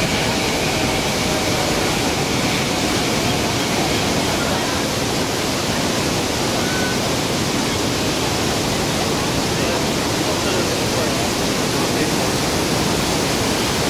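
Steady rushing of falling water from a large plaza fountain.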